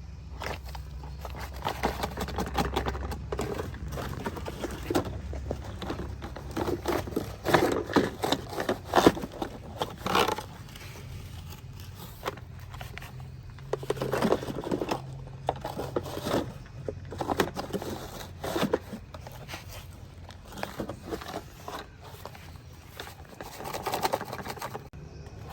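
Toy construction vehicles working: a small motor hums steadily, shifting pitch now and then, under repeated bouts of scraping and crackling clicks.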